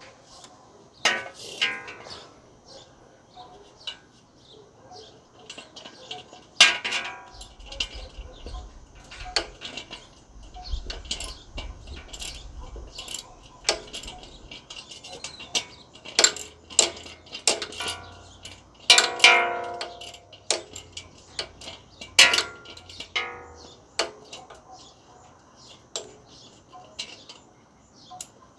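Metal hand tools and sockets clinking and clanking irregularly, with a few louder ringing knocks, around eight, nineteen and twenty-two seconds in.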